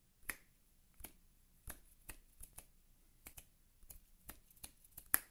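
Faint finger snaps and light clicks, a dozen or so scattered unevenly, the sharpest about a third of a second in and again near the end.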